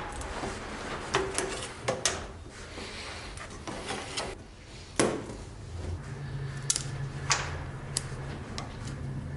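Old wooden handle scales being pried off a rusty knife's riveted tang with a flat metal blade: wood and metal scraping and creaking, with scattered sharp clicks and knocks as the scale gives. The loudest knock comes about five seconds in, and a low hum comes in about a second later.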